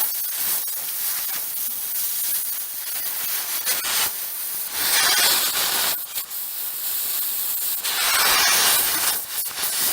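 Steel plate being cut with a hissing metal-cutting tool. The hiss swells louder twice, about halfway through and again near the end.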